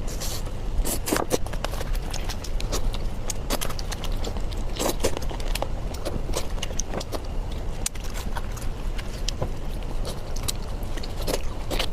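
Close-up eating sounds: crunchy biting and chewing, an irregular run of crisp clicks and crackles over a steady low hum.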